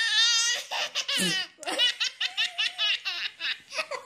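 A baby belly-laughing: a high, wavering squeal at the start, then a run of quick laugh bursts, about four or five a second.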